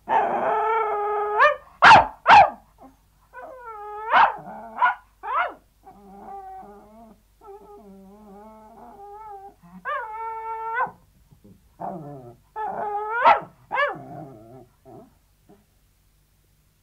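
Sealyham terrier yelping and whining. A held whine opens, then come two sharp, loud yelps about two seconds in. A run of shorter yelps and quieter whimpers follows, then another held whine and a last burst of yelps that trails off.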